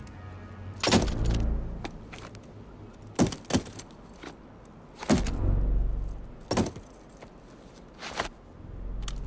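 Guns and a knife dropped one after another onto a hard floor, about six metallic clatters a second or two apart; the ones about a second in and about five seconds in land with a heavy low thud.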